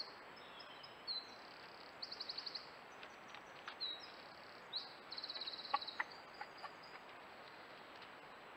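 Small songbirds singing: short high phrases with two fast, rattling trills, over the steady hiss and thin high whine of a trail camera's microphone. A few faint clicks in the middle.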